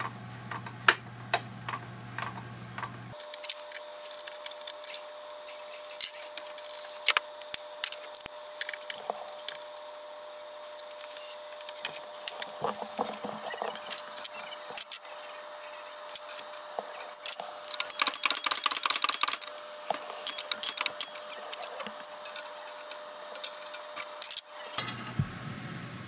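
Small metal injector parts and hand tools being handled on a workbench: scattered sharp clicks and clinks, with a denser run of rattling clinks about three-quarters of the way through.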